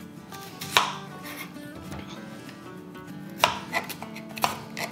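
Chef's knife cutting through a whole white onion onto a cutting board: about five sharp chops, one about a second in and the rest close together in the last second and a half.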